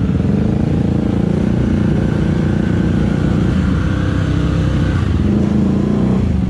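Supermoto motorcycle engine running steadily close to the microphone as the bike rides along.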